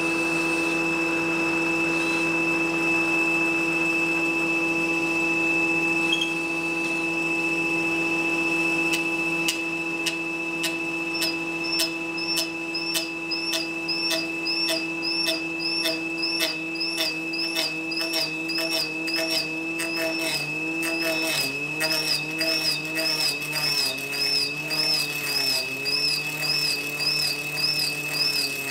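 Table saw running steadily under a round tenon cutter. From about nine seconds in, a crooked log turned on a drill-driven shaft is fed into the blade, adding ticks and then a regular cutting pulse about twice a second as the log rotates, with the motor's pitch sagging under the load.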